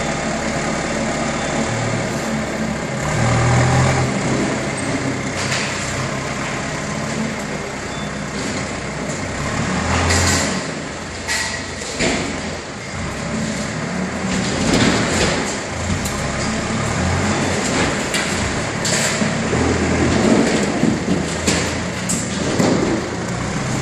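JCB telehandler's diesel engine running under load while its bucket works at the building structure, with scattered clatters and crashes of debris several times.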